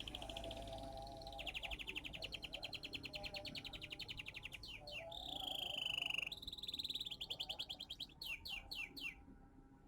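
A pet songbird singing in fast trills of rapidly repeated notes, broken by a falling whistle midway and ending in four quick down-slurred notes. The bird is moulting, which the keeper says has left its song less full and less free.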